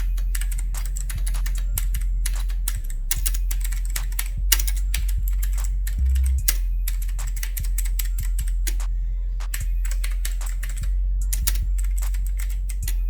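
Typing on an HP GK100 mechanical keyboard: quick, irregular key clicks with a few short pauses, over a steady low hum.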